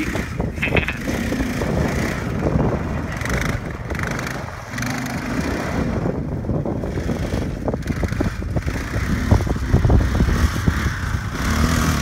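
Kawasaki Bayou KLF400 ATV's single-cylinder four-stroke engine running as the quad is ridden, rising and falling in level, mixed with heavy wind buffeting on the microphone.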